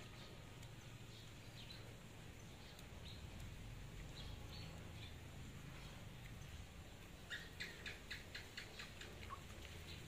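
Faint, short, high-pitched animal chirps, scattered at first, then a quick run of about eight near the end, over a low steady background hum.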